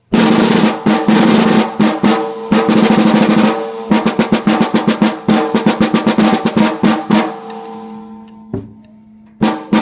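Snare drum with its snare wires on, played with drumsticks to check its tuning: a fast roll for the first few seconds, then a run of single strokes that thins out and fades, with the head's ringing pitch under it. A couple of final hits near the end.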